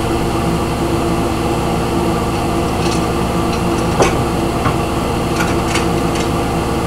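Kitchen range hood fan running with a steady hum, switched on because the frying oil was smoking. A few light clicks and a knock about four seconds in come from things being handled in a cupboard.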